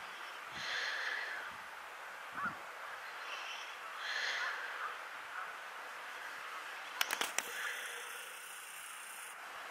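A flock of geese calling in flight, a few scattered honks. About seven seconds in come a few sharp clicks.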